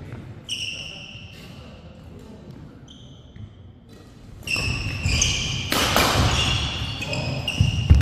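Badminton doubles rally on an indoor court mat: a couple of shoe squeaks in the first half, then from about halfway the rally gets going with racket hits on the shuttlecock, repeated sneaker squeaks and footfalls. A heavy thud of a landing foot is loudest near the end.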